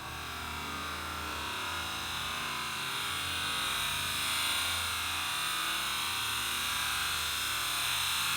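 Distorted, electronic-sounding music fading in and growing steadily louder, with a dense high wash over a shifting bass line.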